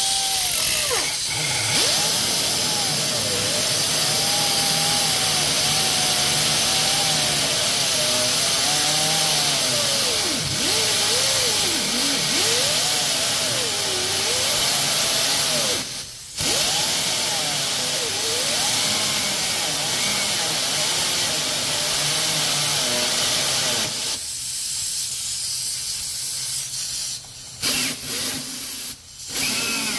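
Air-powered angle grinder with a cutoff wheel cutting into a rusted exhaust flange nut and bolt. A steady air hiss runs under a whine whose pitch sags and wavers as the wheel bites. It cuts out briefly about halfway through and eases off with short pauses near the end.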